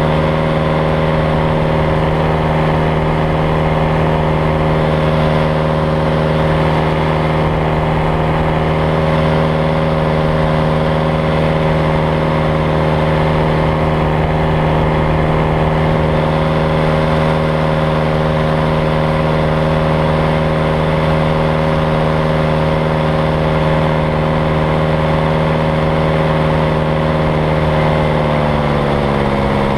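Paramotor engine and propeller running at steady throttle, a constant drone whose pitch drops near the end.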